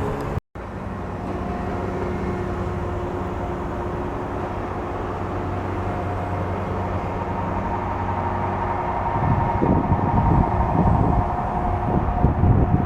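A steady engine hum with several held tones, joined about nine seconds in by a louder, uneven low rumble.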